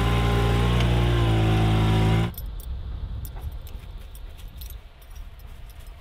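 Polaris side-by-side UTV engine running hard under load as the machine crawls through deep mud, its pitch rising slightly before it cuts off abruptly a little over two seconds in. After that there is only faint light jingling and clicking.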